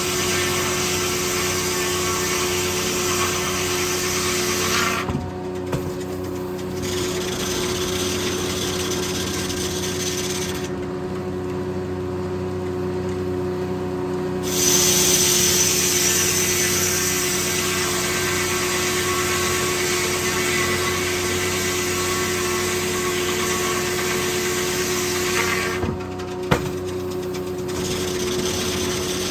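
Corley circle sawmill running with a steady hum while the blade saws white oak logs. The high, hissing cutting sound stops briefly three times, about five, eleven and twenty-six seconds in, then resumes. Two sharp knocks are heard, one near each of the shorter breaks.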